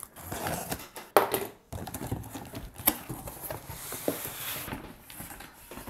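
A cardboard shipping box being opened: packing tape slit and torn, the cardboard flaps pulled back and paper packing inside rustled, with a few sharp clicks and knocks, the loudest about a second in.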